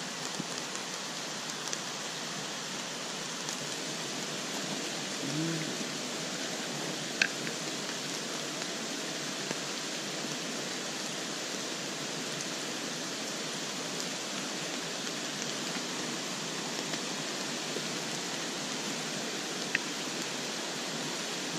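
Steady hiss of rain falling on a shallow, rocky stream, mixed with the water running over the riffle. Two sharp clicks stand out, the louder about seven seconds in and another near the end.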